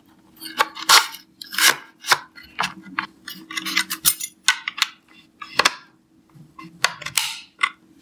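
Hard plastic parts of a Viomi A9 cordless vacuum's electric turbo brush head clicking, knocking and scraping as the roller brush is fitted back in and its end cap is locked. Near the end, the tip of a metal spoon scrapes in the end cap's slot to turn the lock. A faint steady hum runs underneath.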